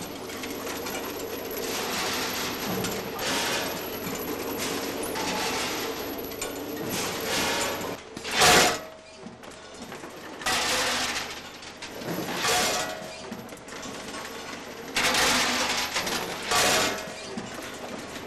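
Vibratory feed trays of a linear weigher rattling steel bolts along, with a steady hum underneath. From about halfway in, a series of loud separate bursts as the weigher's hopper discharges bolts into boxes below.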